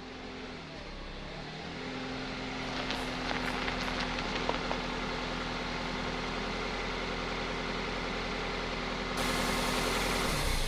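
A minivan pulling into a driveway with its engine running. The engine hum grows louder as it arrives, then holds steady as it idles.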